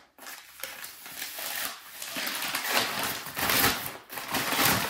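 White packing wrap crinkling and rustling as a bottle is unwrapped by hand, in several rough swells that grow louder after the first second.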